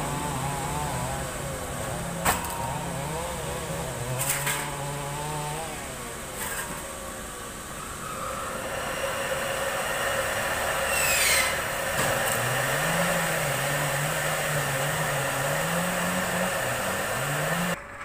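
Large sawmill band saw running, with a few sharp clicks and knocks in the first half. About halfway through the sound grows louder and steadier with a higher ring, and a brief falling whistle follows soon after.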